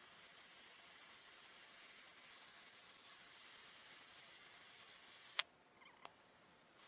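Stick welding on an excavator arm: the electrode arc hisses steadily and faintly. About five and a half seconds in, a sharp click cuts the hiss off, and a smaller click follows a moment later.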